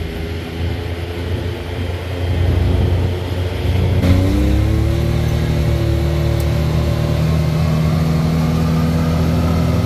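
Side-by-side UTV's engine running as it drives down a street, rising in pitch and getting louder as it accelerates about four seconds in, then holding a steady pitch.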